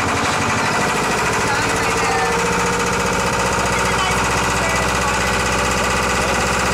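Sailboat's inboard engine running steadily, with a fast, even knocking pulse.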